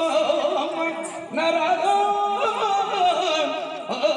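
Folk singing: one high voice sings long held notes with wavering ornaments, in two phrases with a short break a little past a second in and a new phrase starting near the end.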